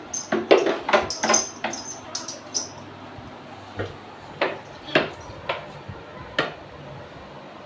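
Goat hooves knocking on a wooden pallet floor: a quick run of knocks in the first few seconds, then single knocks about half a second to a second apart.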